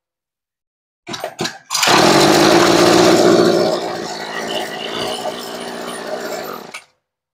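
Tanaka TCG22EASP two-stroke brush cutter engine pull-started: two short tugs on the recoil starter, then it fires and runs loud for about two seconds before settling to a lower, steady run. The sound cuts off suddenly near the end.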